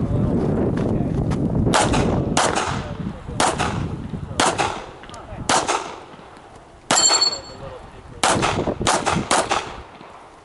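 STI 2011 Edge pistol in .40 S&W firing a string of single shots at irregular intervals, mostly under a second apart with a few longer gaps. One shot about seven seconds in is followed by a brief high metallic ring.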